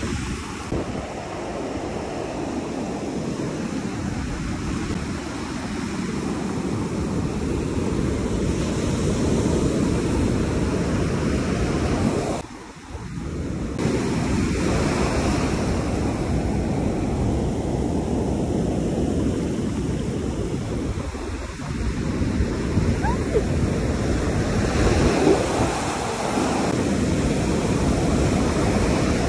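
Ocean surf breaking and washing up a sandy beach, a steady rushing wash of water that drops out briefly about twelve seconds in.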